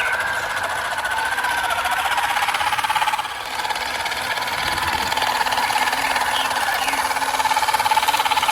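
Small electric motor and gearbox of an RC model construction vehicle, running with a steady high whine that drops in pitch about two seconds in and then holds.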